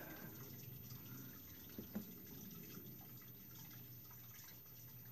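Near silence: faint room tone with a steady low hum and a small tick about two seconds in.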